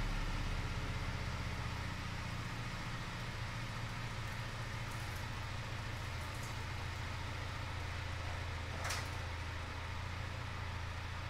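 Ford F-150's 3.5 L EcoBoost twin-turbo V6 running at idle as the truck rolls slowly out in reverse, a steady low hum that fades a little as it moves away. A brief sharp sound about nine seconds in.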